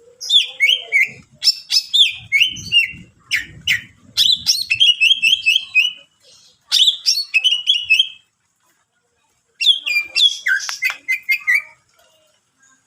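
A cucak ijo (green leafbird) singing loudly in rapid bursts of sharp chirps and falling, trilled phrases, with several short pauses between phrases. It is a varied 'gacor' song of the kind kept birds are trained on.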